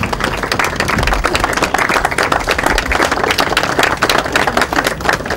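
A group of people applauding: many hands clapping quickly and unevenly.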